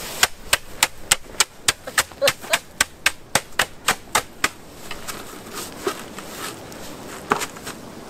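A snow shovel's blade slapping packed snow in quick, even taps, about three or four a second, thinning to a few scattered taps after about four and a half seconds. This is snow being patted down over a campfire's embers to smother it.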